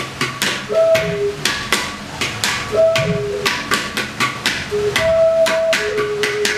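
Music on Mesoamerican instruments: a small hand-held flute holds a few long notes, stepping between a lower and a higher pitch. Under it, hands strike clay pot drums in quick, sharp beats.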